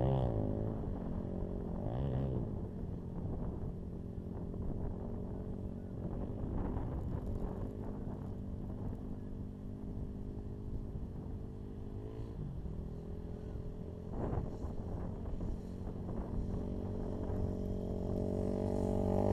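KTM 450 EXC dirt bike's single-cylinder four-stroke engine running at steady low revs, with brief dips in pitch. It revs up near the end.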